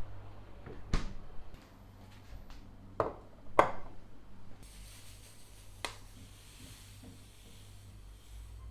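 Household objects being handled: a few sharp clicks and knocks, the third the loudest, followed by a faint steady hiss over a low hum.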